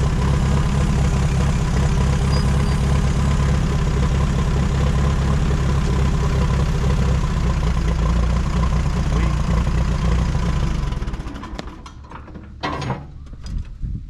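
1952 Case VAC tractor engine running steadily, then shut off about eleven seconds in, the sound dying away over a second. A couple of sharp knocks follow.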